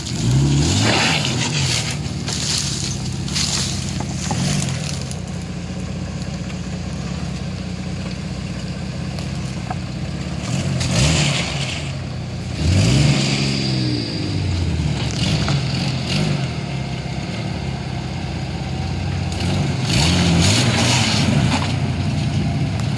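Jeep Cherokee XJ's engine revving in repeated surges as it crawls over rocks and mud, the pitch climbing and dropping several times, with tyres scrabbling and scraping at each surge.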